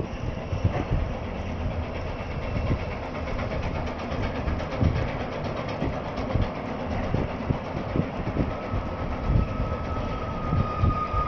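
Chizu Express HOT7000-series diesel railcar running as the train moves slowly along the platform, with irregular low thumps. A steady whine comes in about eight seconds in.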